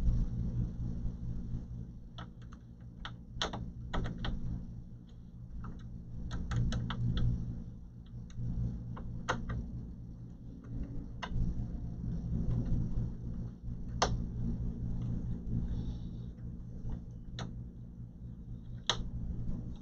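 Handling noise from fitting a solid-state drive into an all-in-one computer's chassis: scattered light clicks and taps, some in quick little runs, as the drive and plastic parts are set in place and moved. A steady low hum runs underneath.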